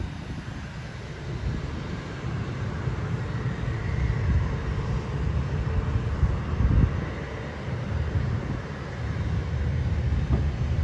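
Distant aircraft engines running, a steady drone over a low rumble that swells and falls, with a faint whine rising a few seconds in.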